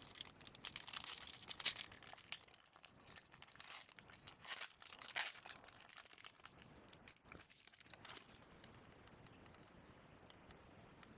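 A trading-card pack wrapper being torn open and crinkled in the hands, in irregular crackly bursts with a few pauses, going quiet for the last few seconds.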